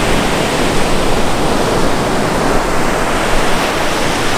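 Sea surf breaking and washing ashore: a loud, steady rush of noise.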